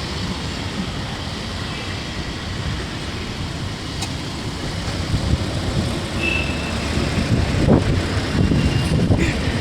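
Motor vehicle engine running with a steady low rumble while the vehicle is driven over a phone to run it over. Near the end there are a few faint clicks and the rumble grows a little louder.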